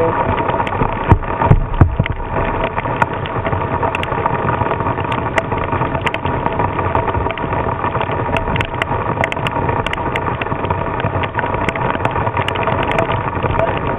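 Squall wind at about 35 mph buffeting the microphone along with heavy rain: a dense, steady rush of noise, broken by two or three loud knocks between one and two seconds in.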